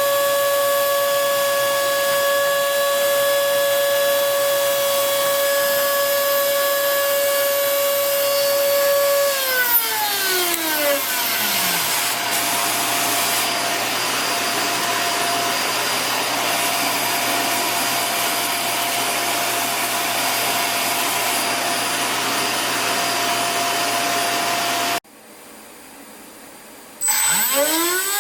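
Spindle motor of a homemade CNC router running with a steady whine, which winds down in a falling pitch about a third of the way in. A steady rushing machine noise carries on, then cuts out abruptly near the end. A motor then spins up with a rising whine.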